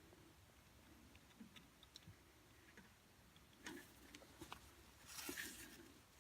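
Near silence with a few faint clicks and a brief light rustle of handling about five seconds in.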